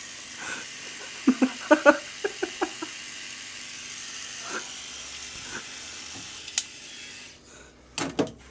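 Remington rotary electric shaver buzzing steadily as it trims a moustache, then switched off about seven seconds in. A quick run of short, sharp, loud sounds comes about a second and a half in.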